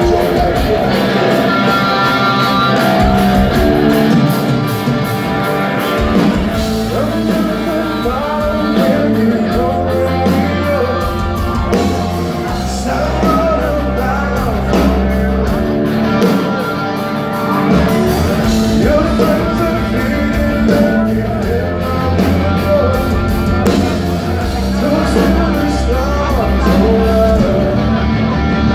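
Live rock band playing a song: sung vocals over electric guitar, bass and drums.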